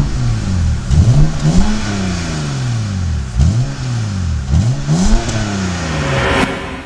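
BMW E90 330i's N52 3-litre naturally aspirated straight-six being free-revved through its twin exhaust tips: about five quick blips, each rising sharply and falling slowly back down.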